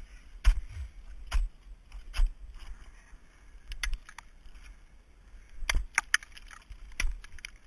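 Ice axe picks and crampon points striking a frozen ice wall during a climb: about seven sharp, irregular impacts, with brittle surface ice coming loose.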